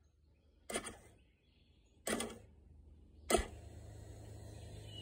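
Three knocks about a second apart from hands on a 2021 Yamaha YZ450F dirt bike, the last the loudest, followed by a faint steady mechanical hum.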